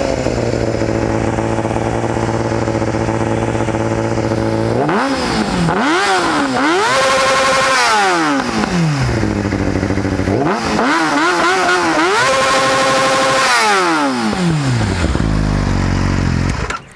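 2011 Yamaha YZF-R6's 600 cc inline-four, fitted with a Yoshimura aftermarket exhaust, idling and then revved hard in two rounds. Each round climbs through quick blips to a held high-rpm note and falls back to idle. The engine is switched off near the end. Very loud.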